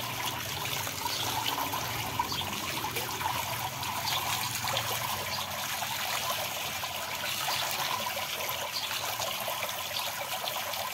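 Running water trickling and splashing onto raw chicken pieces in a wicker basket as hands rub and rinse them, a steady wash of water with small wet handling sounds.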